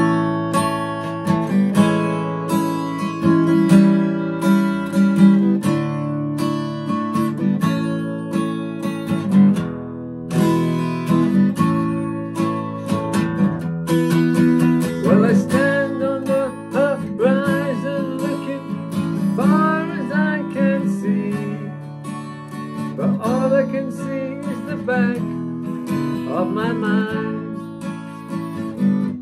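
Steel-string acoustic guitar strummed in chords, playing a song.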